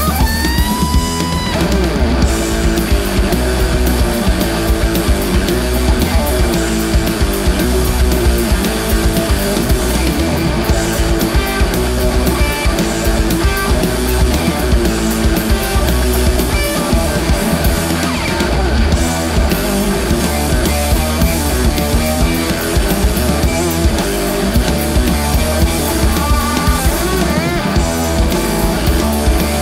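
Instrumental heavy psychedelic rock played live, loud and continuous: a Telecaster-style electric guitar plays lead lines over bass guitar and a drum kit. Just after the start a guitar note is bent up and held, and near the end a held note wavers.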